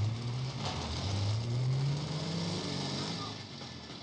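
Open staff car's engine pulling away, rising in pitch as it accelerates, then easing off and fading slightly near the end.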